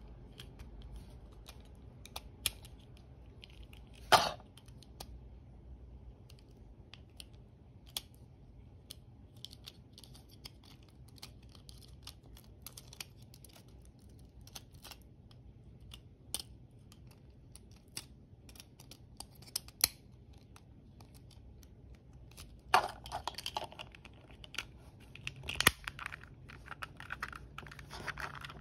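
Plastic parts of a tape roller being clicked and handled: its yellow shell and clear refill cartridge snapped apart and pressed together. Sparse light clicks and taps, one loud snap about four seconds in, and a busier run of clicking and rubbing near the end with a sharp click among it.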